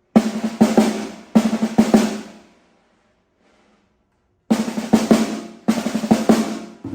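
Snare drum on stock heads played in short, fast rolls: two bursts of quick strokes of about a second each, a pause of about two seconds, then two more.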